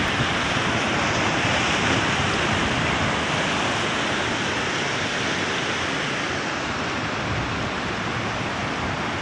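Sea surf breaking and washing over shoreline rocks, a steady rush of foaming water that eases slightly later on, with some wind on the microphone.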